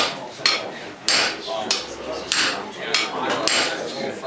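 Blacksmith's hammer striking metal in a steady series of blows, a little under two a second, each with a short metallic ring.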